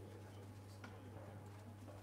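Quiet room tone with a steady low hum and a faint click or two.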